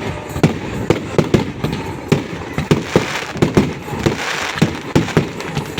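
New Year fireworks going off: a rapid, irregular run of bangs, several a second, over continuous crackling.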